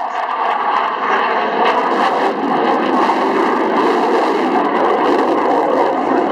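F-16 fighter jet in flight, its jet engine a loud, steady rush of noise that swells about a second in and then holds.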